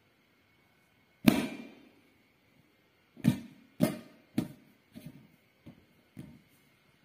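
A series of sharp thuds, each with a short ring after it: one loud thud about a second in, then six softer ones roughly every half second, growing fainter.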